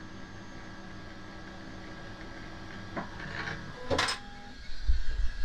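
Bambu Lab X1 Carbon printer and its AMS unit unloading filament after a print, with the excess being wound back onto the spool. A steady mechanical hum is broken about three seconds in by a few clicks and then a sharp clack about four seconds in. Low thuds follow near the end.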